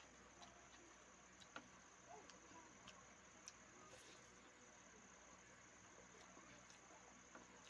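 Near silence with faint, scattered clicks of chewing and mouth sounds, over a steady high-pitched hiss.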